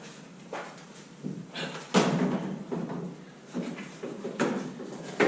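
A series of clunks and thuds from a removed car body part being handled and set down, the heaviest thud about two seconds in.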